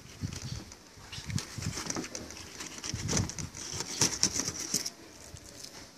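Knife cutting a king mackerel fillet off the backbone: a busy run of scraping and clicking as the blade works along the bones, busiest in the middle and easing off near the end.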